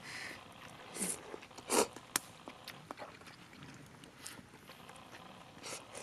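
Udon noodles being slurped and chewed: a few short slurps in the first two seconds, then quieter chewing with small scattered clicks.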